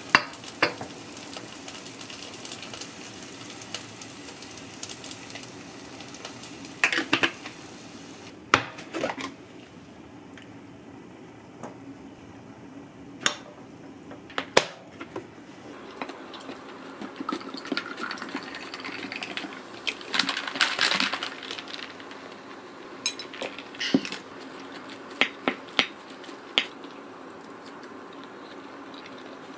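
Handling of dishes and a metal spoon: a glass bowl and a ceramic plate clinking, and a steel spoon scooping pickles into a small ceramic bowl. About a dozen separate sharp clinks, with quieter scraping and rustling between them.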